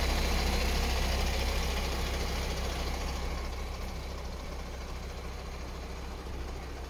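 MAN TGA 26.400 truck's diesel engine idling steadily with a low, even rumble, gradually getting quieter.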